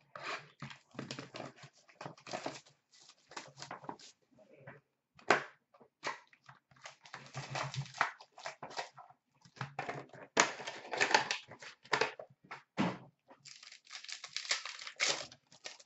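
Hockey card box opened by hand and its pack wrappers torn and crinkled while the cards are shuffled: an irregular run of rustling, crackling and tearing, busiest about ten seconds in and again near the end.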